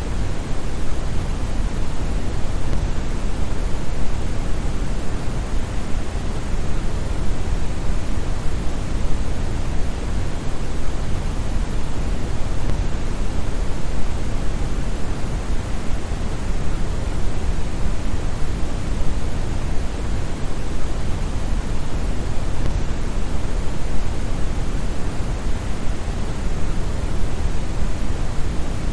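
Steady brown noise: a continuous, even hiss weighted toward the bass, deep and rumbling like a distant waterfall, without change.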